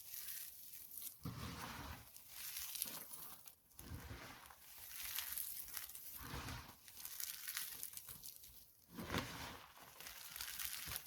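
Dry soap being crushed, crunching and crumbling in uneven crackly bursts, with a few stronger, deeper crunches.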